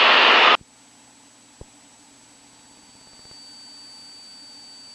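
Steady rushing cabin noise of a Cessna T206 in flight, heard through the headset intercom, cuts off abruptly about half a second in. What is left is a faint steady hum with a thin high whine, and a single small click.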